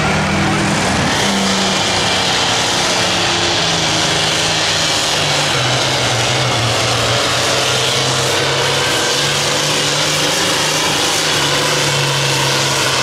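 Allis-Chalmers D-21 pulling tractor's turbocharged diesel engine running flat out under load as it drags the weight-transfer sled down the track: a loud, steady drone.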